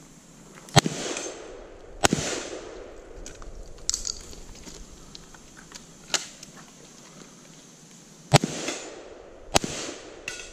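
Rifle shots fired at steel targets: four loud cracks in two pairs, each pair about a second apart and followed by an echo. The pairs are some six seconds apart, with a few fainter sharp clicks between them.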